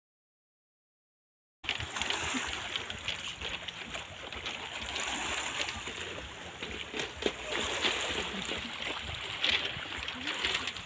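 Silent for about the first second and a half, then small sea waves wash and lap over a pebble beach: a steady watery hiss with scattered small clicks of stones.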